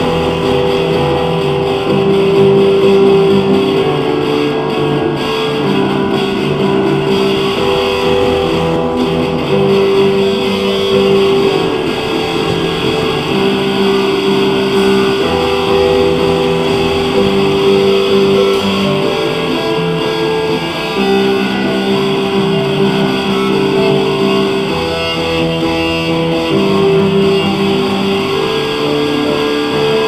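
Instrumental background music with sustained notes changing every second or two.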